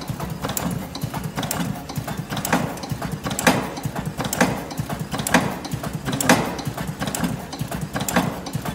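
Electric cigarette filling machine running in a steady cycle: a continuous low mechanical rattle with a sharp clack about once a second.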